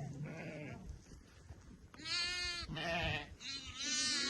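A flock of sheep bleating: a fainter call early on, then several loud overlapping bleats from about two seconds in.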